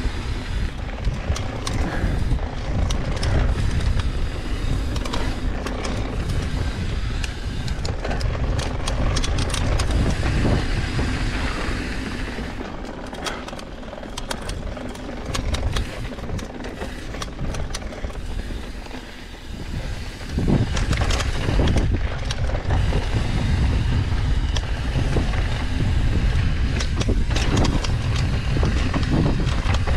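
Mountain bike rolling fast down a dirt and gravel trail: tyres crunching over the ground, with rattles and knocks from the bike over bumps, under heavy wind rumble on the camera's microphone. It eases for several seconds about halfway through, then comes back loud about two-thirds in.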